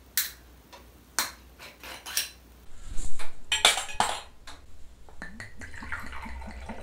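Several sharp clinks and knocks of glass and tableware, then, from about five seconds in, soju glugging out of a glass bottle into a shot glass in quick, even pulses.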